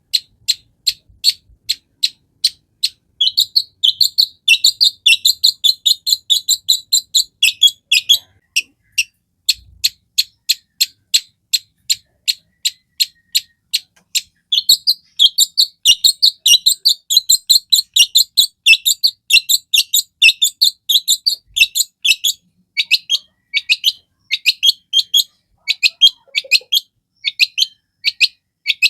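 Long-tailed shrike (cendet) singing a continuous chattering song: a steady string of short, sharp high notes at about three a second. The notes thicken into dense runs a few seconds in and again around the middle.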